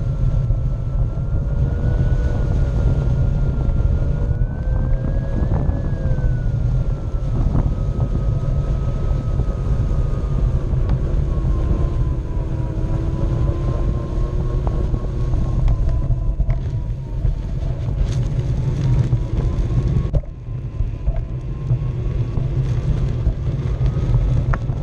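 Onewheel's electric hub motor whining, its pitch drifting slowly up and down with speed, over a steady low rumble of the tyre rolling and wind on the microphone. The rumble drops abruptly about twenty seconds in.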